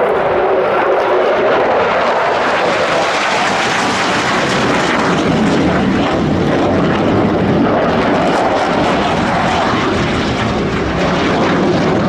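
Chengdu J-10 fighter jets passing low in a display pass: a loud, steady rush of jet engine noise.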